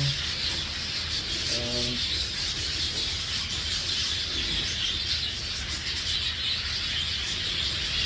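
A flock of budgerigars chattering and chirping together without pause, a steady high-pitched twittering with no single call standing out.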